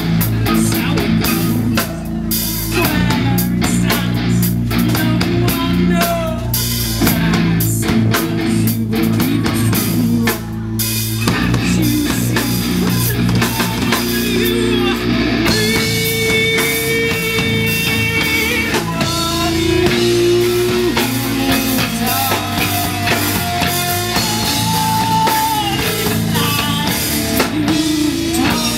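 Live rock band playing loud: a drum kit pounding steadily under electric guitar, with long held guitar notes from about halfway through.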